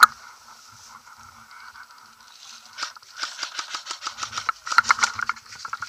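Footsteps swishing and crunching through dry grass, coming quicker and louder from about three seconds in. A single sharp click right at the start.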